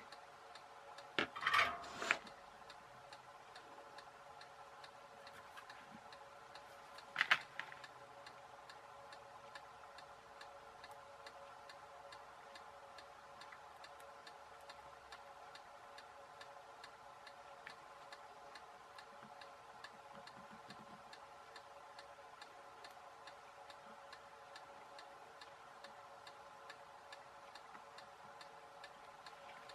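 Faint steady ticking over a low steady hum, with short louder noises about one and a half seconds in and about seven seconds in.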